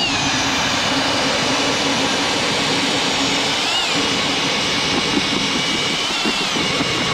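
A motor running steadily at high speed with a high whine, the pitch dipping briefly a couple of times; it starts abruptly.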